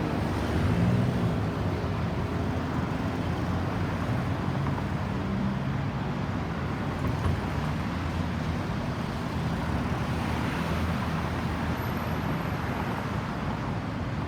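Road traffic: vehicle engines running with a steady rush of tyre noise. No siren is sounding.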